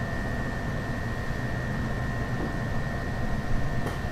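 Ryutetsu 5000 series electric train running, heard from inside the car: a steady rumble of wheels and running gear under a thin, steady high-pitched whine.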